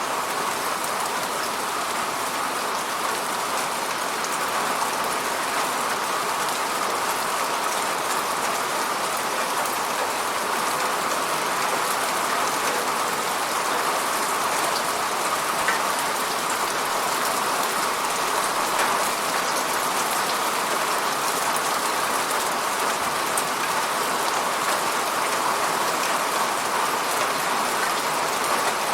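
Steady rain falling and pattering against an apartment window, a dense even hiss with scattered small drop ticks.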